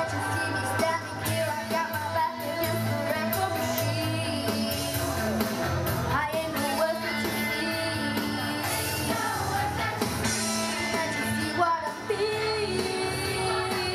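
A boy singing lead into a handheld microphone with a youth choir, over amplified pop backing music with a steady beat.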